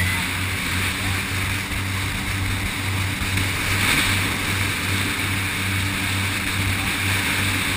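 Jet boat's engine running steadily at speed, a low drone with an even pulse, under the rush of water and wind as the boat moves fast along the river.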